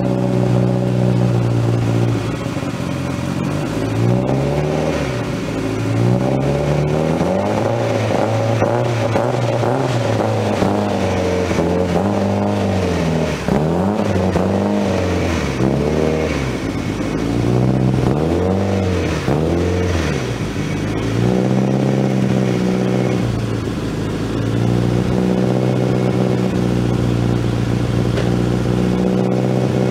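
Freshly installed Toyota 3S-GTE turbocharged inline-four of a 1990 Celica All-Trac GT-Four running. It starts at a steady idle, is revved up and down repeatedly from about two seconds in, then settles back to a steady idle near the end.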